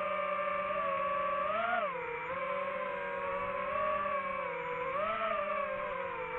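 DJI FPV drone's motors and propellers whining steadily in flight. The pitch swells up and falls back twice, about two seconds in and again about five seconds in, as the throttle changes.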